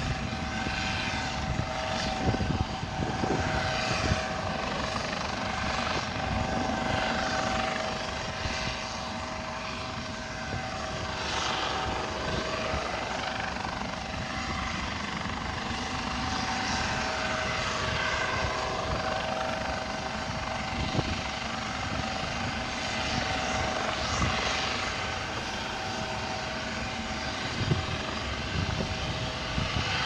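Rescue helicopter running, a steady engine drone with a constant high two-note whine and a pulsing rumble, over rough sea and wind on the microphone.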